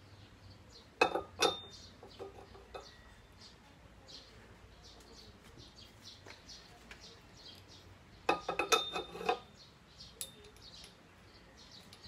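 Metal clinks and rattles from the pole pieces of an old National electric fan stand being handled and fitted together: a short burst about a second in, and a longer rattling run around eight to nine seconds in.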